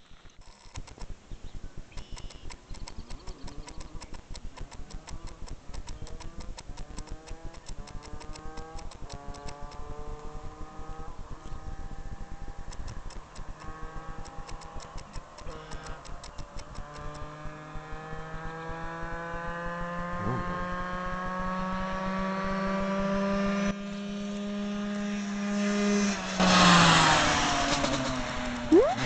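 Yamaha YZ125 two-stroke single-cylinder dirt bike at full throttle, its engine note climbing in steps through the gears and growing louder as it approaches. It then holds a steady high pitch at top speed. Near the end it passes close by, at its loudest, and its pitch drops as it goes away.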